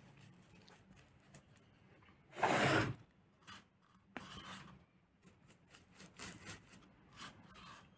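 Stiff paintbrush scrubbing a wet grey filler mixture into a textured cobblestone surface and a crater, in short scratchy strokes. About halfway through, the brush scrapes inside the small pot holding the mix, with a sharp click. A louder half-second rush of noise comes about two and a half seconds in.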